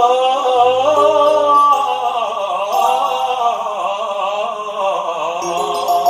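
A man singing through a microphone and PA, holding long notes that bend and waver, accompanied by an electronic keyboard playing sustained chords with a bass line that changes a few times.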